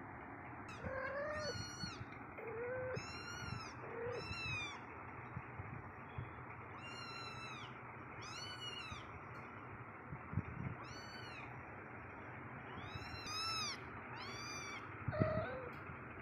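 A cat, Chiku, meowing repeatedly in short, high-pitched, arching calls, about nine of them spread over the stretch, with a dull thump near the end.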